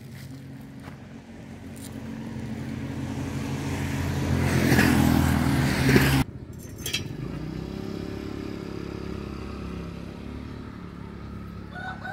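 Small petrol engine running: it grows louder over about six seconds and breaks off abruptly, then a steady, quieter engine hum continues.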